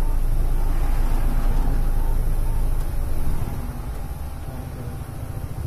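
Steady low rumble of a moving van's engine and road noise, heard from inside the cabin, growing quieter about three seconds in.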